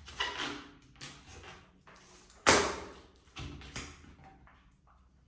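Latex modelling balloon squeaking and rubbing in a few short strokes as it is twisted and tied off by hand, with one sharper, louder stroke about halfway through.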